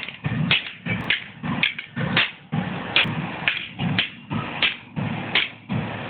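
A hammer repeatedly bashing the broken parts of an LCD alarm clock, a hard blow about twice a second.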